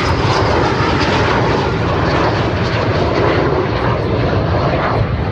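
Formation of jet aircraft flying overhead, their engines a loud, steady rush of noise.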